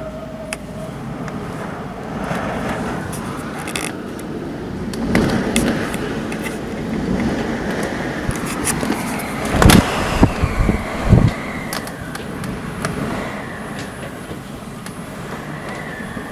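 Gusty wind ahead of a severe thunderstorm: a steady rush of wind, with a few hard gusts buffeting the microphone about ten seconds in.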